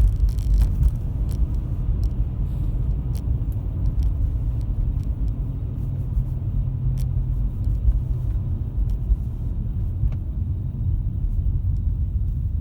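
2005 Toyota Estima driving, with a steady low motor-like drone over the road rumble from its worn right rear wheel hub bearing.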